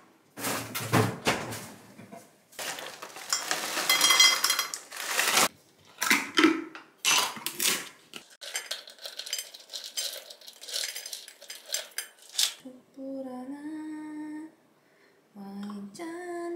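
Kitchen prep clatter at a stone countertop: a ceramic bowl and spoon clinking, a plastic jar's lid twisted off, and granola poured into the bowl in a run of small rattling ticks. Near the end a woman hums a short repeated tune.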